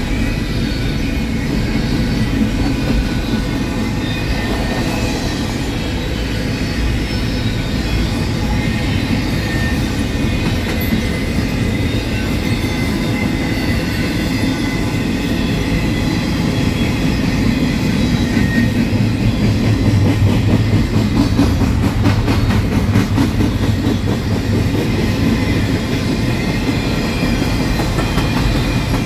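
Double-stack intermodal freight train's well cars rolling steadily past: a continuous rumble of steel wheels on rail with clickety-clack and a faint thin squeal from the wheels. It grows a little louder about two-thirds through.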